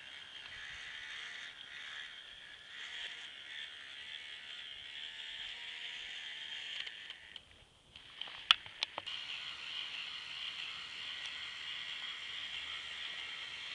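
Electric motor and plastic gear train of a K'NEX four-wheel-drive model truck running with a steady high whir and gears meshing. It cuts out briefly about seven and a half seconds in, then a few sharp clicks, and it runs again.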